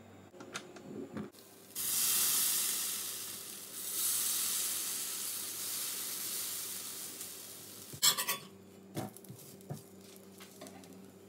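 Dosa batter sizzling as it hits a hot flat iron tawa and is spread with a steel ladle: the hiss starts suddenly, swells again a couple of seconds later, then fades. Near the end come a few sharp clinks of steel utensils.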